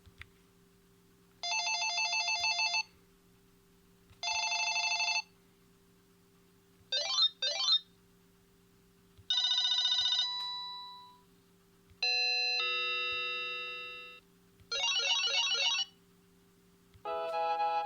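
Panasonic KX-TGA810 cordless phone handset playing a series of different short polyphonic ringtones one after another, each lasting a second or two with short gaps between them. Two of them fade out, and another melody starts near the end.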